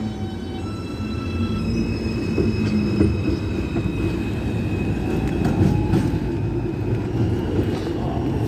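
R142 subway train pulling out of the station: a steady rumble of wheels on rail under the electric whine of its traction motors. The whine sounds as thin steady tones at several pitches that come and go one after another.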